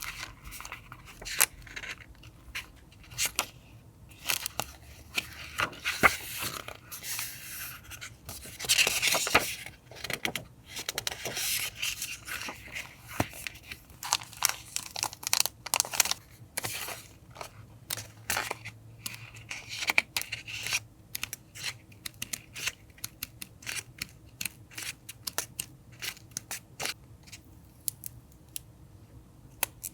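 Paper and stationery being handled on a desk: rustling, tearing and scraping with many short clicks and taps, and a longer rustle about nine seconds in.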